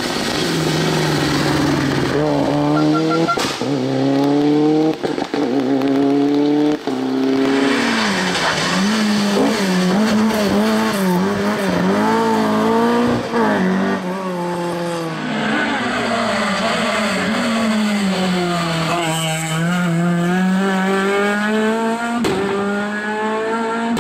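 Rally car engines at full race pace, revving hard and rising and falling in pitch through repeated gear changes, one car after another.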